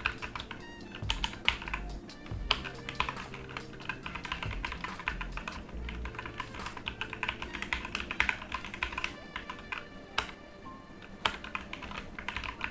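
Fast typing on a Digital Alliance Meca Air mechanical keyboard: a rapid, uneven run of key clicks and clacks.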